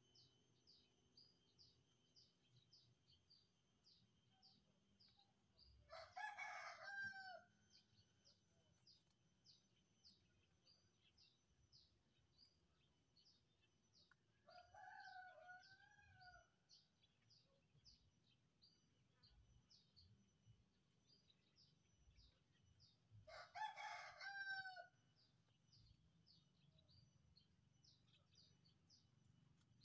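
A rooster crows twice, about seventeen seconds apart, each crow lasting about a second and a half. A shorter, quieter wavering call comes midway between them. Faint high chirping repeats about twice a second underneath.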